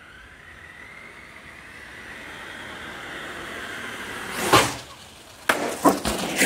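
HPI Savage XL Flux RC monster truck running: its brushless electric motor whines, rising in pitch and growing louder as it speeds up. A loud impact about four and a half seconds in, then several sharp knocks near the end as the truck crashes and tumbles.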